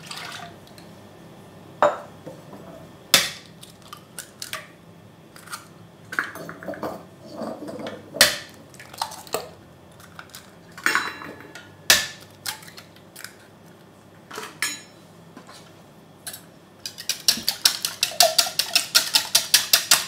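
Scattered knocks and taps of handling a plastic mixing bowl as cream and eggs go into it; about three seconds before the end a wire whisk starts beating them in the plastic bowl, a fast even rhythm of about five strokes a second.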